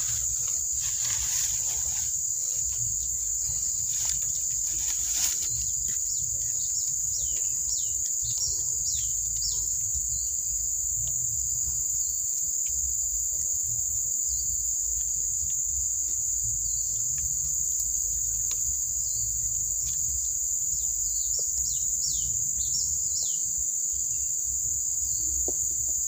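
Steady high-pitched insect drone of crickets or cicadas. Several sharp knocks come in the first few seconds. Short falling bird chirps come in clusters near the middle and again near the end.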